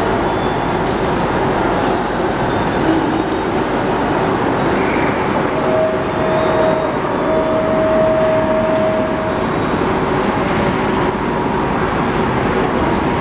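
Concarril NS-88 metro train approaching through the tunnel toward the platform, a steady loud rumble that echoes off the tunnel walls. A steady whine is held for a few seconds midway through.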